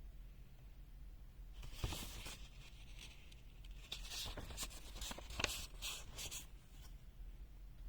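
Fingertips tapping and sliding on a multimeter's touch screen and plastic case: a run of soft scratchy brushes and small clicks from about a second and a half in until about six and a half seconds.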